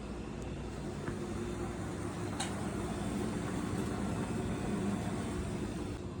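Steady road and engine noise of a moving car, heard from inside, with a faint constant hum.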